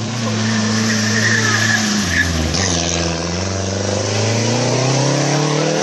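Small rally hatchback's engine pulling through a hairpin at low revs, then revving up and rising steadily in pitch as it accelerates away uphill, with a brief break about two seconds in.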